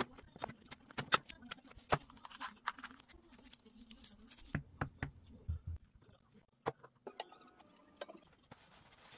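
Food-preparation handling sounds: irregular sharp clicks and taps of a blade and fingers against a wooden cutting board as a green cucumber chili pepper is split open and seeded.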